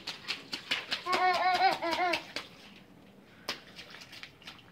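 Rain boots stepping and splashing quickly in a shallow puddle, short sharp slaps about four a second that thin out after the first couple of seconds. A burst of high-pitched laughter from about one to two seconds in.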